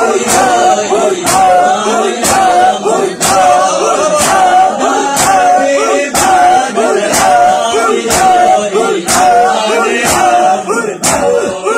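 A crowd of men doing matam, striking their chests together with open hands in a steady beat of about one blow a second, while men's voices chant a noha over the beat.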